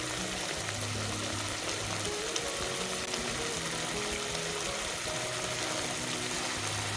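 Soft background music, a slow melody of held notes, over a steady sizzle of food frying in the pan.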